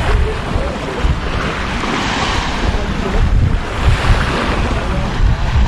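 Sea waves washing onto the beach, with two swells of surf hiss, while wind buffets the microphone in low, uneven gusts.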